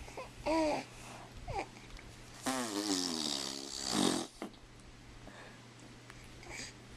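A young child making funny vocal noises: two short pitched sounds, then a drawn-out breathy voice sound of over a second with its pitch sliding down.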